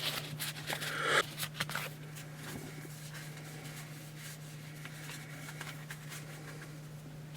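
Trading cards being handled, with brief scraping and rustling clicks in the first couple of seconds. After that only a steady low hum is heard.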